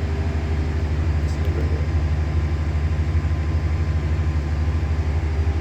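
A steady, low mechanical hum of a machine running without change.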